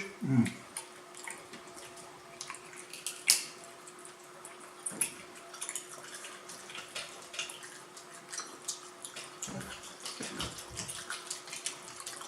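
Wet eating sounds of a seafood boil eaten by hand: scattered sticky clicks and smacks from chewing and handling sauce-coated shellfish, with one sharper click about three seconds in. A faint steady hum runs underneath.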